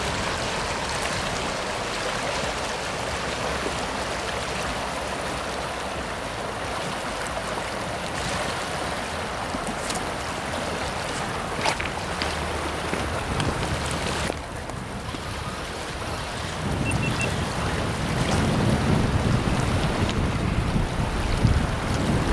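River current rushing steadily past, with a low rumble of wind buffeting the microphone in the last few seconds.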